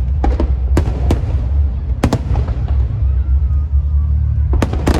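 Fireworks going off: single sharp bangs in the first two seconds, then a quick cluster of bangs near the end, over a steady low rumble.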